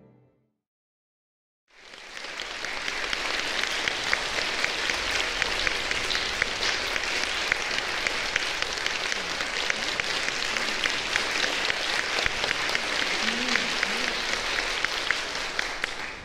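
Audience applause, many hands clapping steadily. It begins about two seconds in, after a moment of silence.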